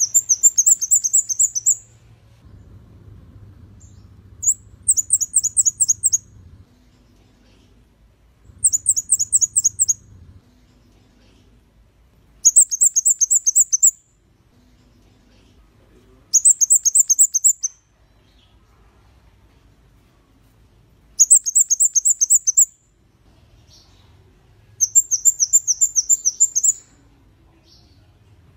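Flowerpecker (kemade kepala merah) singing: seven short bursts of rapid, very high, thin notes, each burst lasting under two seconds and repeated about every four seconds.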